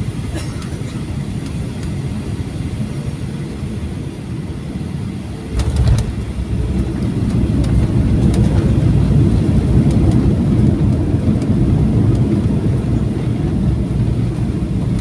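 Boeing 737-800 landing, heard from inside the cabin. A steady low rumble turns into a sudden thump about five and a half seconds in as the wheels touch down. A louder low rumble follows as the engines go into reverse thrust and the tyres roll along the runway.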